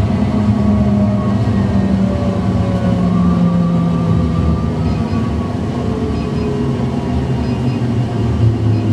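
Electric tram running along the street rails, heard from the driver's cab: a steady rumble of wheels on track, with the drive's whine falling slowly in pitch as the tram slows.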